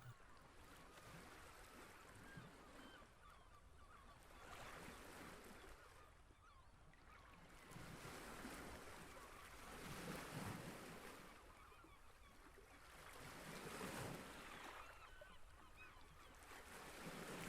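Faint beach ambience: surf washing ashore in slow swells that rise and fade every few seconds, with faint calls of seabirds mixed in.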